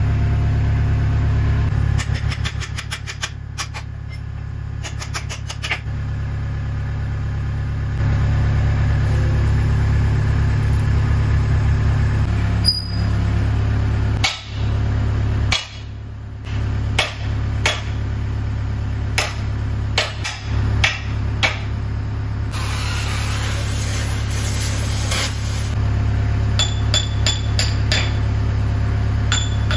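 An engine idles steadily while a hammer strikes steel again and again, in scattered blows that bunch up in the second half. A hissing rush lasts a few seconds, a little past two-thirds of the way through.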